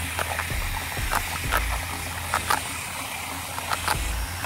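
A model bucket wheel excavator's small DC motors turning its bucket wheel through sand: a steady hiss of sand scraping and spilling, with many irregular clicks and ticks of grains and buckets, over a low steady hum.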